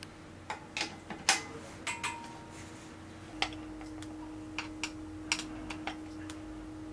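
Irregular light metallic clicks and ticks of bicycle drivetrain parts being worked on by hand while the crankarm is removed and the chain undone, the sharpest click about a second in. A steady low hum runs underneath.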